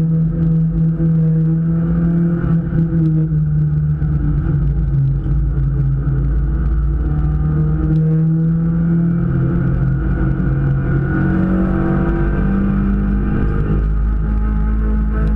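Super 1600 class race car's engine heard from inside the stripped cabin, running hard under racing load as a loud, steady drone whose pitch shifts down and back up a few times.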